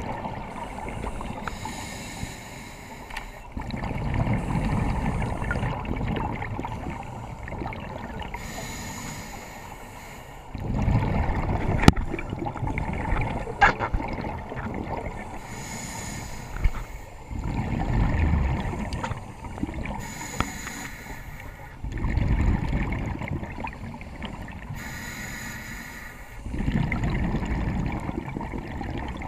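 Scuba diver breathing through a demand regulator underwater, heard close: a hissing inhale, then a rumbling gush of exhaled bubbles, repeating about every five to six seconds. A couple of sharp clicks come near the middle.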